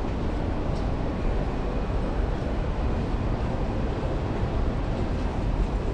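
Steady low rumble of city street ambience, with no distinct events standing out.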